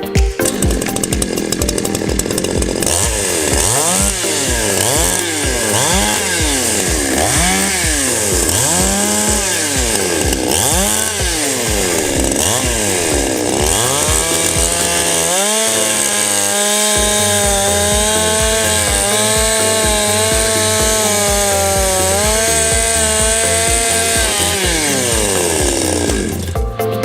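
Petrol chainsaw engine revved up and down about ten times in quick blips, then held at high revs for about ten seconds before dropping back near the end. Background music with a steady beat plays underneath.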